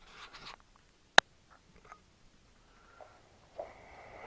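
A single sharp click about a second in, with a few faint soft handling noises around it and a faint steady tone coming in near the end.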